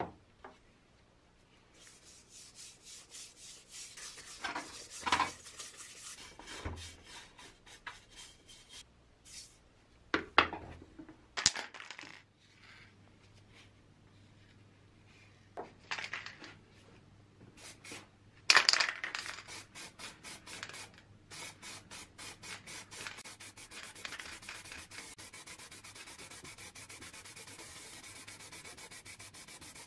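Repeated rubbing strokes on a steel helmet shell, broken by a few sharp knocks, then an aerosol can of filler primer spraying in a steady hiss over the last several seconds.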